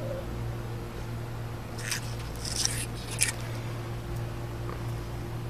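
Three short, dry rustles and crackles of wood-chip mulch as a Cuban rock iguana walks over it, about two to three seconds in, over a steady low hum.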